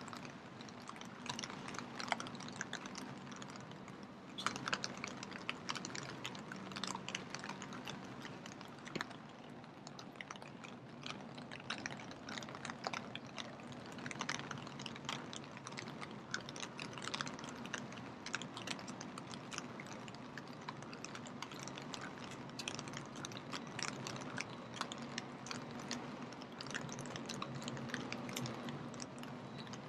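Rain falling, with many irregular close drops ticking and spattering throughout, over a faint low steady hum.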